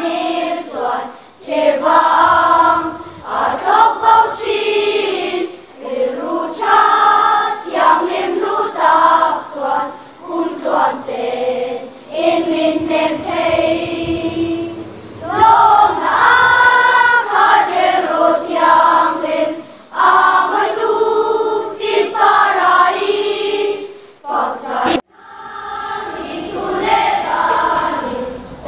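Children's choir singing together in sustained phrases, with a short break about 25 seconds in before they carry on.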